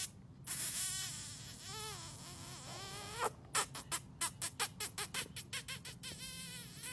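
Rottweiler puppies whimpering in short, high, rising squeaks and whines. From about halfway through there is a quick run of sharp clicks, roughly four a second.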